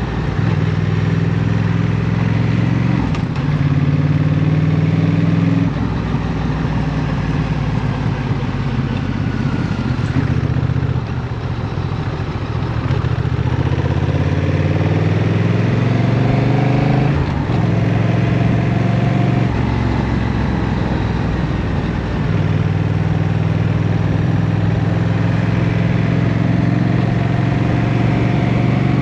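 Honda CMX1100 Rebel's parallel-twin engine running through city riding, with several abrupt gear changes. Its revs drop off about ten seconds in, then climb steadily as it pulls away again.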